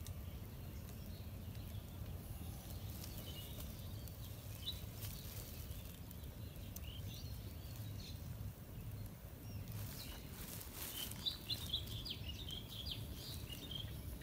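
Small birds chirping on and off, with a quick run of chirps near the end, over a steady low outdoor rumble.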